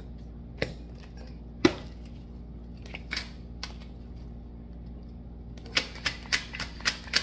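A deck of cards being shuffled by hand: scattered sharp card snaps and taps, the loudest about a second and a half in, then a quick run of clicks near the end.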